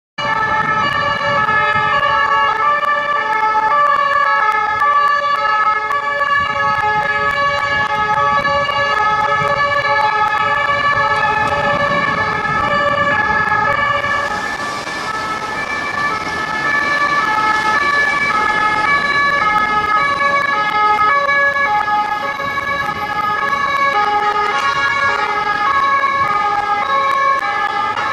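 French police two-tone 'pin-pon' sirens sounding high-low, more than one siren overlapping out of step, over street traffic.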